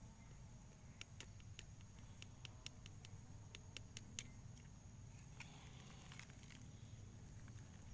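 Near silence: a low steady hum with about a dozen faint, scattered light clicks and taps.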